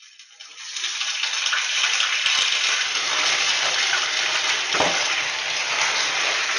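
A steady hissing noise that fades in over about a second and holds steady, with a single short knock about five seconds in.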